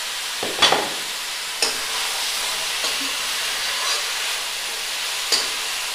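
Fresh pumpkin leaves and shoots sizzling and steaming in hot oil in a wok, a steady hiss broken by a few sharp strokes of stirring against the pan.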